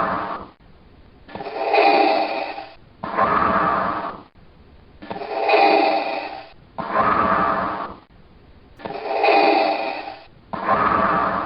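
Darth Vader's mechanical respirator breathing sound effect: slow, even breaths in and out through the mask, repeating about every three and a half seconds, about three full breaths.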